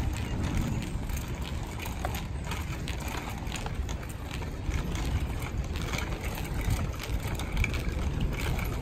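A child's bicycle with training wheels rolling on a paved path: a gritty rattle with many small irregular clicks, over a low rumble of wind on the microphone.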